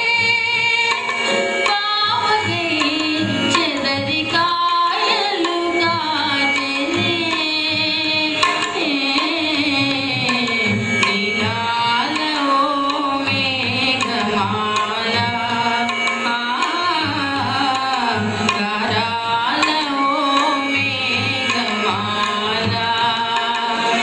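Telugu film song music: a gliding, ornamented melody over tabla and percussion accompaniment.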